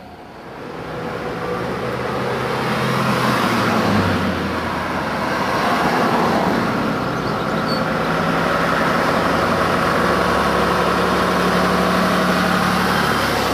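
Diesel engine of an AEC Routemaster coach (RMC) running as the bus approaches along the road, with traffic noise. The engine drone is steady and loud, and its note shifts about four seconds in.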